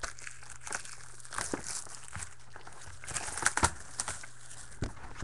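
Plastic wrapping crinkling and tearing as a box of trading cards is opened by hand: irregular crackles with a few sharper snaps, loudest about three and a half seconds in.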